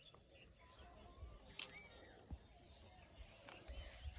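Quiet outdoor ambience with a faint steady high hiss, faint short chirps, and one sharp click about a second and a half in.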